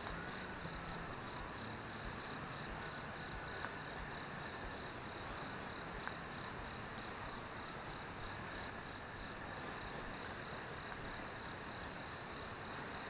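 Steady rush of a mountain stream, with an insect, likely a cricket, chirping in a high, even, pulsing rhythm over it.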